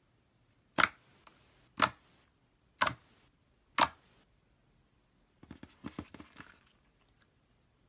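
Glossy slime being pressed and poked, giving four sharp clicking pops about a second apart, then a quick run of smaller crackling clicks.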